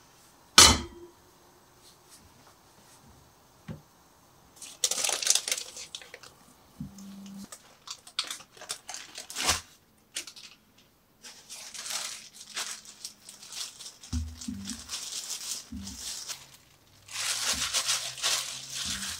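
Parchment paper crinkling and rustling in several bursts as steamed rice-flour dough is lifted out of a steamer in the paper and tipped into a wooden bowl, then worked by gloved hands. A single sharp knock about half a second in is the loudest sound.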